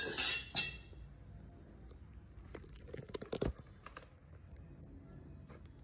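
Handling noise: a brief rustle with a click at the start, then a few light clicks and knocks about three seconds in.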